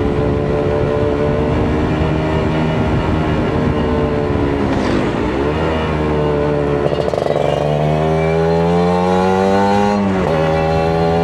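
Kawasaki Ninja RR 150's two-stroke single-cylinder engine running under way. Its pitch dips about four seconds in, climbs steadily for several seconds as the bike accelerates, then drops sharply about ten seconds in.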